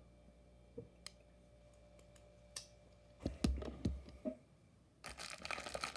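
Small clicks, then a few knocks with a low thump, as diecast model cars are handled and set down, followed by plastic rustling and crinkling starting about five seconds in.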